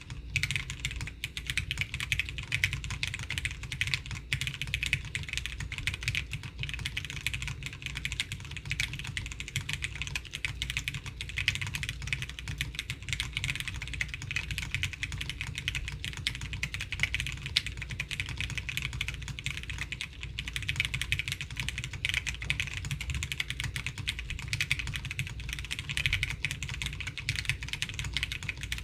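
Continuous typing on a Qwertice R2 custom mechanical keyboard with lubed Hyperglide MX Brown tactile switches, a polypropylene plate and Shenpo 1953 dye-sublimated keycaps: a steady, dense stream of keystroke clacks with a soft low thock under each.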